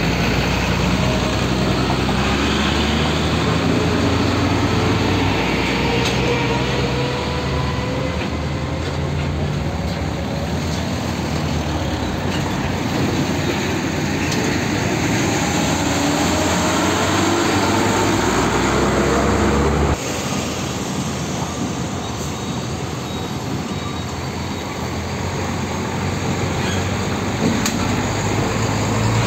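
Diesel engines of Isuzu Giga tanker trucks pulling slowly past, the engine note climbing as they accelerate. The sound changes abruptly about two-thirds of the way through as another truck takes over.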